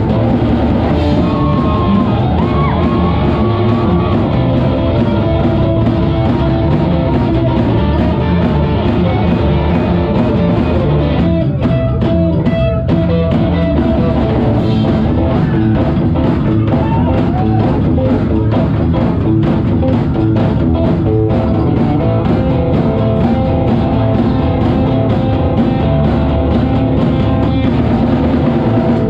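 Live psychobilly band playing loud and fast: a hollow-body electric guitar, an upright double bass and a drum kit.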